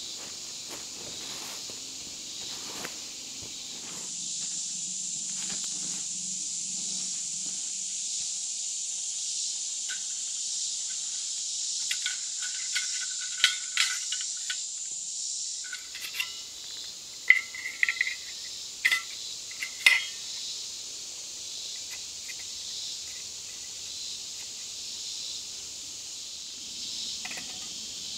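Steady high insect chorus throughout, with a few footsteps on leaf litter in the first seconds. About halfway through comes a run of sharp clinks with a short ring, stainless steel camp stove and cook kit parts knocking together as they are set out.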